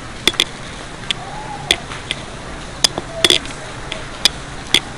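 About ten sharp clicks and knocks at irregular spacing, over a steady hiss.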